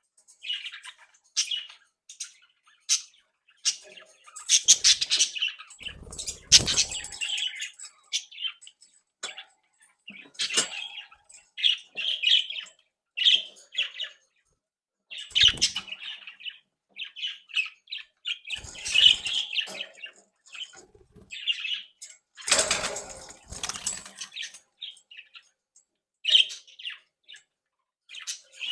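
Budgerigars chirping and chattering in short, intermittent bursts, with several louder flurries of wing flapping.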